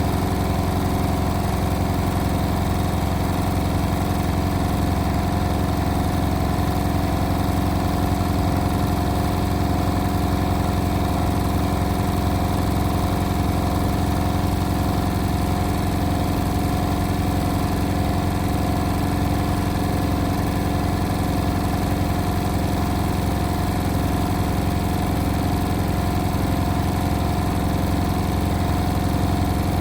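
Indesit WIL143 washing machine on its final spin, the motor and drum running at a steady high speed with an even hum that does not rise or fall.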